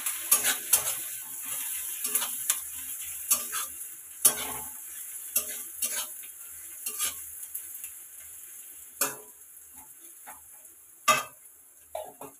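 Steel spatula scraping and clacking against a metal kadai while stirring sliced onions and whole spices frying in hot oil, with an irregular run of strokes over a steady sizzle. The sizzle fades after about eight seconds, and a couple of sharper knocks come near the end.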